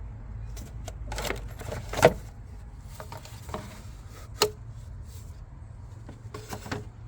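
Scattered metallic clicks and clinks of hand tools and small parts being handled while bolts are removed in a car's engine bay, the loudest knock about two seconds in, over a steady low hum.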